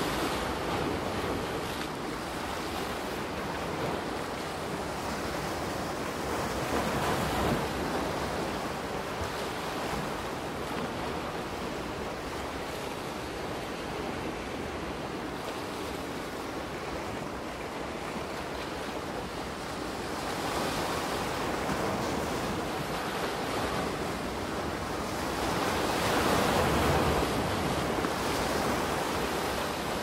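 Soft ocean waves washing onto a beach: a steady surf hiss that swells as waves break about seven seconds in, again around twenty-one seconds, and loudest near twenty-seven seconds.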